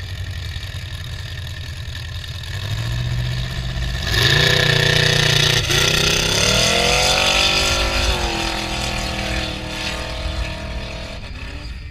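Modified mud-racing truck's engine revving hard through a mud pit, with tyres churning mud loudest about four seconds in. The engine pitch climbs for a couple of seconds, then fades as the truck pulls away.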